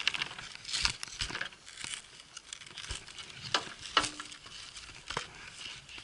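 Ski jumper's clothing and skis handled close to a helmet-mounted camera while he shifts on the start bench: rustling and scraping with a few sharp knocks and clicks.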